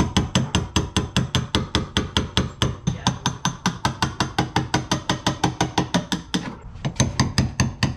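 Rapid, even hammer blows on a chisel, about six a second with a brief pause about six seconds in. The chisel is chipping sound-deadening material off the sheet-steel floor pan of a 1989 Honda Civic.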